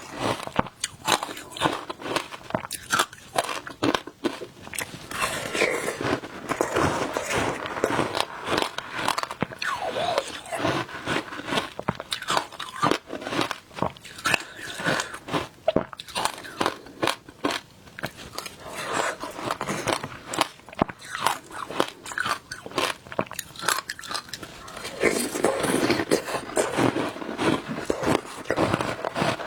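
Shaved ice being bitten and chewed: a dense, uneven run of crunches and crackles.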